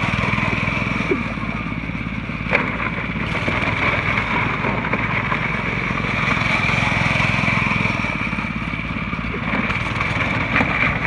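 Hammerhead Torpedo kids' go-kart's small single-cylinder gas engine running steadily as the kart drives around on gravel, with a steady high whine alongside.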